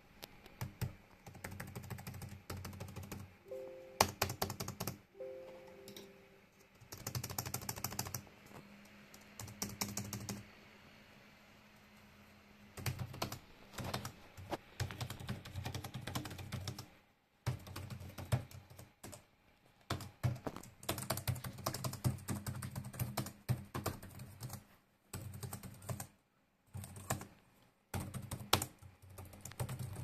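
Asus TUF FX505DU laptop keyboard being typed on and mashed rapidly around the WASD keys: fast clicking key presses in bursts of a few seconds, with short pauses between them and a longer pause about eleven seconds in.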